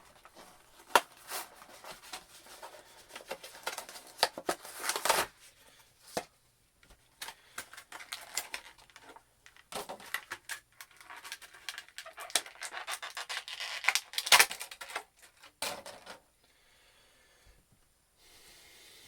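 An action figure's packaging being opened by hand: irregular rustling, crackling and sharp clicks of cardboard and plastic being pulled apart, stopping about sixteen seconds in.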